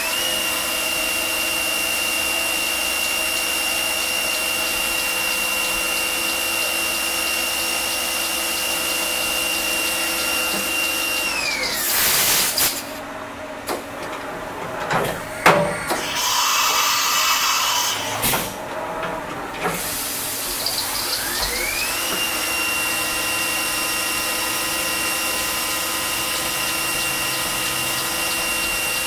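Fadal CNC mill cutting plastic handle blanks, its spindle running with a steady high whine. The spindle winds down about 11 seconds in, followed by a tool change with a hiss of air and a few sharp clicks. The spindle then winds back up with a rising whine about 21 seconds in and runs steady while drilling.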